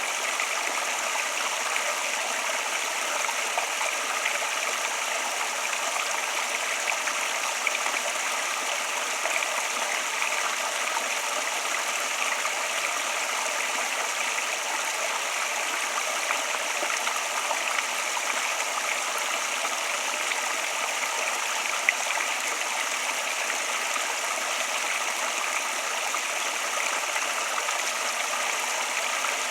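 Flowing water running steadily, a constant even rush with no change in level.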